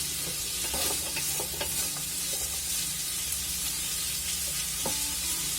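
Pork, onion and carrots sizzling steadily in a hot pan as they are stir-fried, with a few light clicks of the stirring utensil against the pan.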